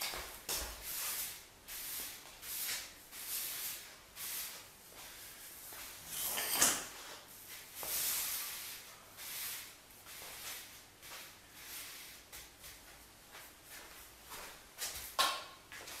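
Broom sweeping debris across a floor in a run of short, irregular brushing strokes, with one louder stroke about six and a half seconds in.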